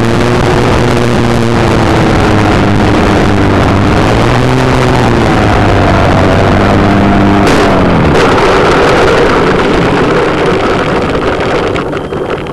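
ParkZone T-28 Trojan electric RC plane's motor and propeller running, heard from the onboard camera under heavy rushing air noise, its pitch shifting with the throttle. About eight seconds in, the motor winds down for the landing, leaving rough rolling and wind noise that fades near the end as the plane comes to a stop.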